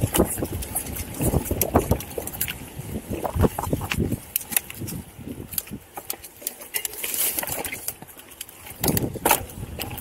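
Footsteps on rough stony ground, an uneven run of crunches and knocks, with wind buffeting the microphone. It eases off for a few seconds past the middle, then picks up again near the end.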